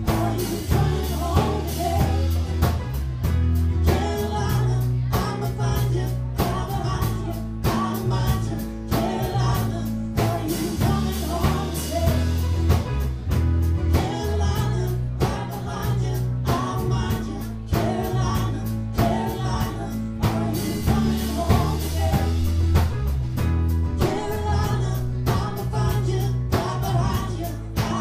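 Live band playing a song with singing: bass guitar, electric and acoustic guitars and a steady drum beat.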